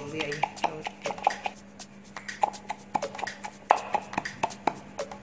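Wooden pestle pounding a moist herb and chili paste in a wooden mortar: quick, irregular knocks, roughly three a second.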